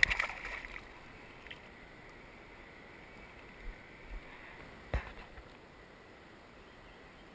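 Water splashing as a released bass kicks away from beside the kayak, loudest in the first half-second, then a single sharp knock about five seconds in.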